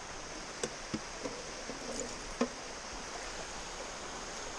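Steady rush of a small creek running over rocks, with a few light knocks about a second and two seconds in.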